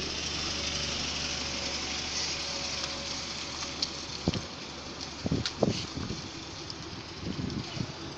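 Steady low mechanical hum with an even hiss, like an engine or machine running nearby. From about four seconds in there is a scatter of short, light knocks and clicks.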